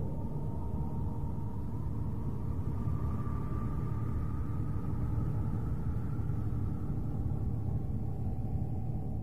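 Space audio presented as the sound of Saturn's rings: a deep, steady rumbling drone with faint thin tones drifting slowly in pitch above it.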